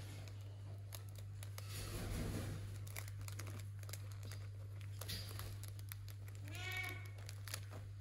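Soft rustling and crinkling as a small parrot moves about on a fabric rope toy, with one short bleat-like call near the end.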